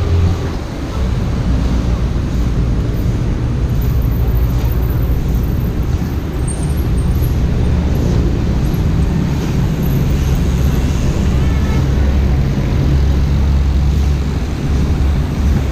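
Steady low wind rumble buffeting the microphone of a camera carried on a moving bicycle.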